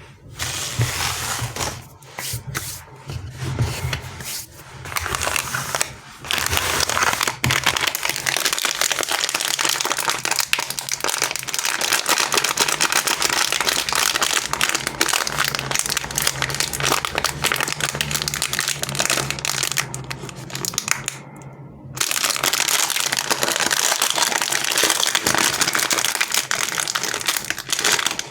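Plastic and foil candy and chocolate wrappers crinkling as they are handled, a dense crackle. It comes in short bursts at first, then runs almost continuously, with one brief pause about three-quarters of the way through.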